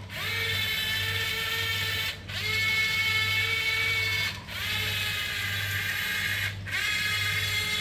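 Small electric gear motors of a Yi Gong YG258C 11-channel radio-controlled toy excavator whining as it moves its arm and swings its upper body. The whine comes in four runs of about two seconds each with brief breaks between, each run rising slightly in pitch as it starts.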